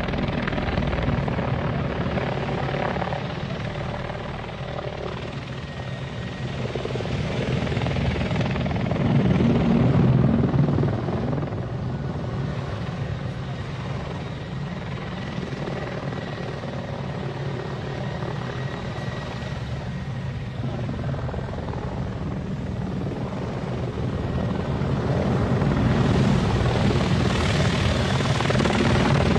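Helicopter rotor and engine noise, steady throughout and growing louder twice: about ten seconds in and again near the end.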